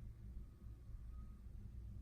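Quiet room tone: a faint, steady low hum with no distinct event.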